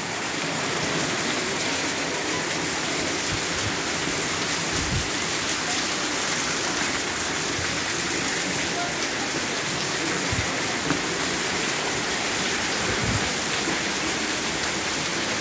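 Heavy rain falling steadily, splashing off a clay-tile roof, with a few soft low knocks.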